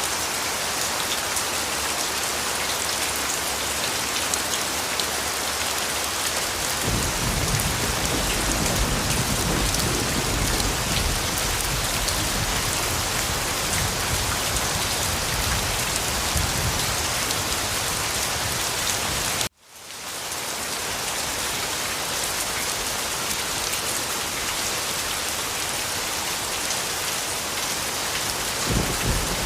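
Steady heavy rain falling on a surface, with a low rumble of thunder joining in about a quarter of the way through. About two-thirds of the way in the rain cuts out suddenly and fades back up within a second.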